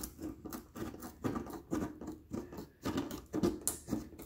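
Tin snips cutting along the edge of an ABS plastic shell: a run of short snips, about two or three a second.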